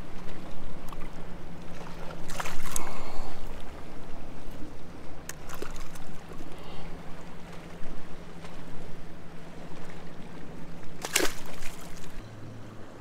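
A steady motor hum on a small boat with water sloshing and trickling around it, broken by a few sharp knocks; the hum drops lower near the end.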